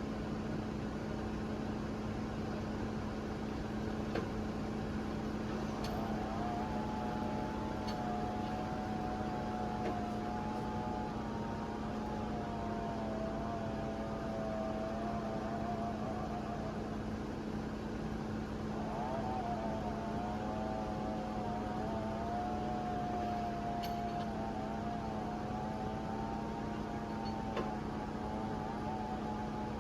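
Bulldozer's diesel engine running steadily at idle, a constant low hum. A higher wavering whine rises and falls over it for two long stretches, about a quarter of the way in and again past the middle.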